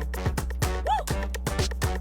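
Electronic dance music with a steady, fast beat and deep kick drums.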